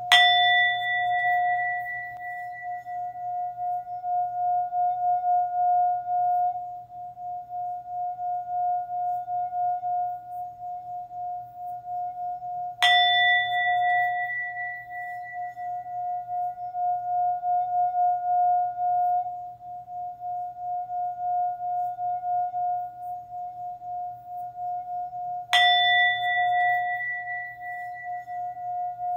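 Singing bowl struck three times, about thirteen seconds apart. Each strike rings on in a long, wavering hum that is still sounding when the next strike comes, while the higher overtones die away within a few seconds.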